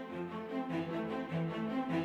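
Background music: a gentle melodic instrumental bed with sustained notes, no speech.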